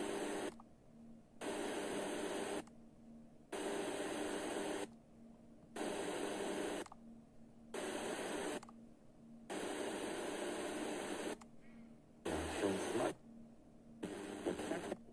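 FM tuner of a Sony DAV-560 receiver stepping up the band about 0.05 MHz at a time. Each step gives about a second of hissing static with faint traces of distant stations, followed by a short mute while it retunes. Near the end a weak station's audio shows through the hiss.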